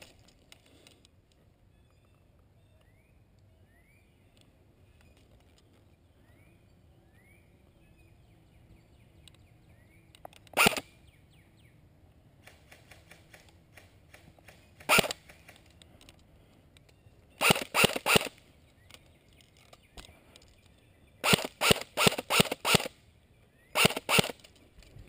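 Echo 1 SG-1 airsoft electric rifle firing close by: a single shot about ten seconds in, another a few seconds later, then a quick string of three, a rapid string of about six and two more near the end.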